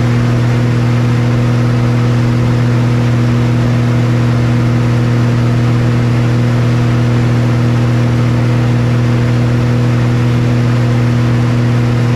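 Steady drone of a single-engine aerobatic plane's piston engine and propeller in level cruise, heard loud inside the cockpit: one strong low hum with fainter steady tones above it, unchanging throughout.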